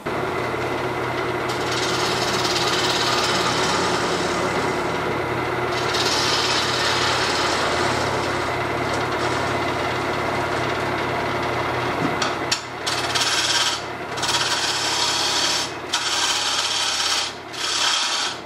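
Wood lathe running with a steady motor hum while a turning gouge cuts a spinning wooden bowl, giving a rushing scrape of wood being cut. In the second half the cutting sound breaks off briefly about four times.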